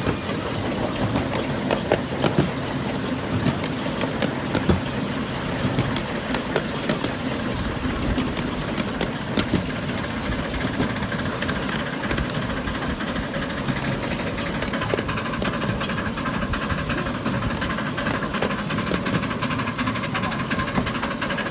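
Miniature coal-fired steam locomotive running along its track, heard from the driver's seat: a steady running rumble of engine and wheels on rail, with many small clicks and knocks.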